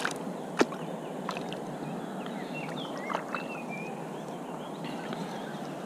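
Steady rush of river water around a small boat, with a sharp click about half a second in and a few faint bird chirps midway.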